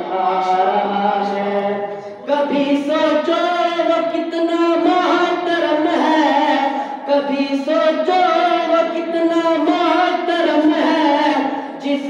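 A boy singing a devotional chant unaccompanied into a microphone, in long held, wavering phrases with short breaks about two and seven seconds in.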